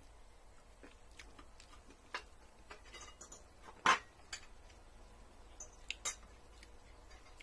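Spoons and forks clinking on plates as people eat: scattered light clicks, with the sharpest clink about four seconds in.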